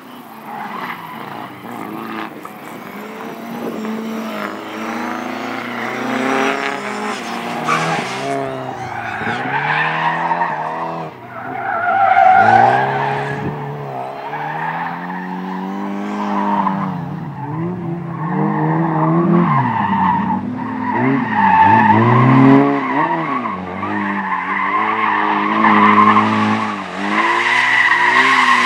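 A slalom car's engine revving up and dropping back again and again as the driver accelerates, brakes and turns through the course, with tyres squealing in the corners. It grows steadily louder as the car comes closer.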